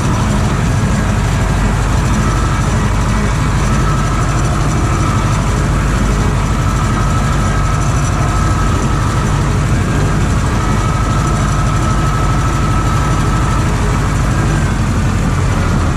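Tractor engine running steadily while pulling a field sprayer, a deep even drone with a thin steady whine over it that fades out near the end.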